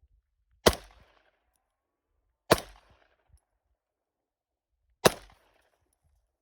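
Three single gunshots, about two and then two and a half seconds apart, each a sharp crack with a short ringing tail.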